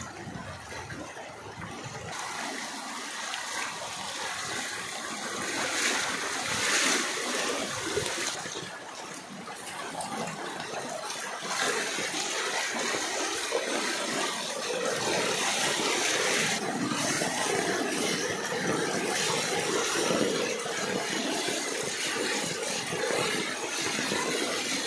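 Muddy floodwater from heavy rain rushing along a street in a continuous churning flow, a bit louder from about six seconds in.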